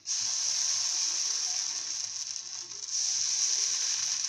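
Appam batter sizzling as it hits a hot nonstick appam pan: a steady high hiss that starts suddenly as the batter is poured in.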